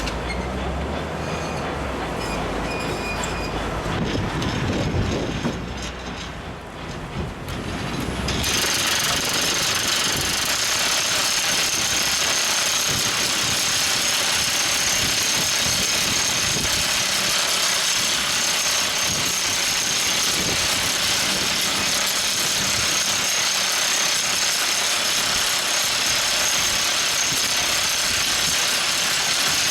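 Everdigm ECD45E top hammer drill rig: the machine runs with a lower-pitched engine sound, then about eight seconds in the rock drill starts percussion drilling, a dense, steady hammering clatter that carries on unbroken.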